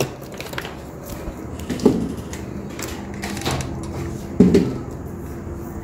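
Hands handling paper and cardboard pieces on a table: soft rustles and light knocks, two of them louder, about two seconds in and again past the middle, over a steady faint hum.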